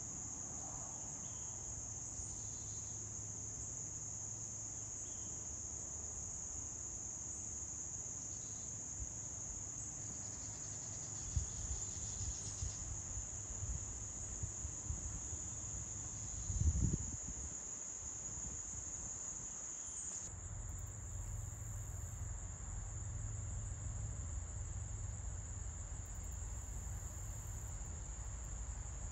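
A steady, high-pitched chorus of insects trilling without a break. Irregular low rumbles come and go through the middle, with one louder low thump about two-thirds of the way through.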